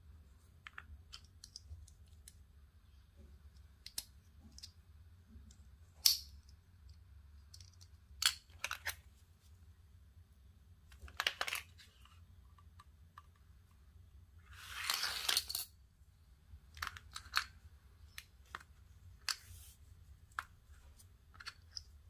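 Hand-handling noises of paracord craft materials on a cutting mat: scattered light clicks and taps of a plastic buckle, scissors and a torch lighter being picked up and set down, and a rustle of about a second near the middle.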